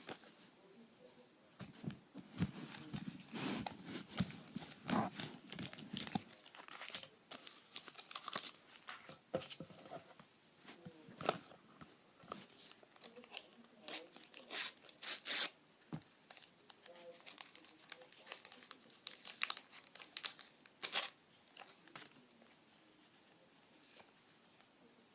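Topps sticker packets being torn open and crinkled by hand: irregular tearing, rustling and crackling wrapper sounds, busiest a few seconds in.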